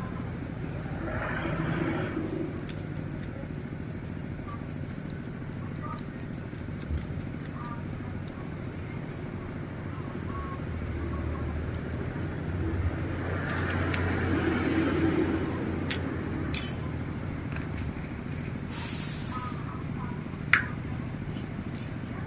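Sharp metal clicks and clinks from hand work on a motorcycle engine, with a brief hiss about nineteen seconds in, over a steady low hum.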